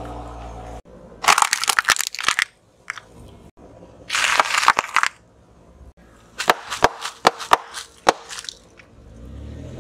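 A car tyre rolling over and crushing things on asphalt: three spells of crackling, snapping and crunching, the middle one a short dense crunch, with single sharp snaps near the end.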